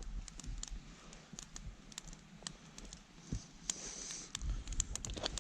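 Pocket knife whittling a dry, dead stick: irregular sharp clicks and ticks as the blade bites and shaves the wood, with a short scraping stroke about four seconds in.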